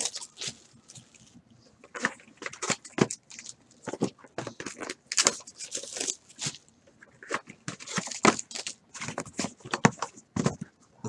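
Foil trading-card packs and plastic shrink-wrap crinkling and tearing as hands open them, in uneven crackles and rustles.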